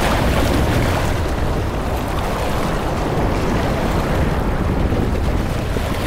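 Ocean surf breaking on a beach: a steady wash of waves, with wind rumbling on the microphone.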